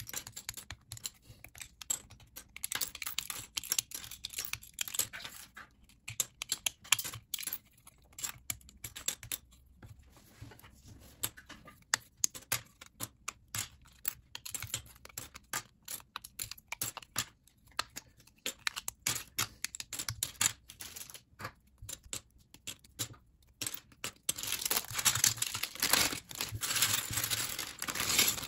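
LEGO plates and bricks being pulled apart by hand: a fast, irregular run of sharp plastic clicks and snaps. Near the end a clear plastic bag crinkles as the pieces are put into it.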